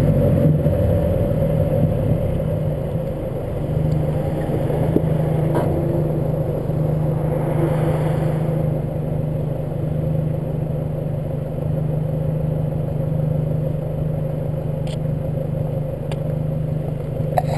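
Volkswagen Mk5 GTI driving, its engine and road noise a steady drone with wind on the microphone, broken by a few sharp, isolated clanks from the front suspension over bumps.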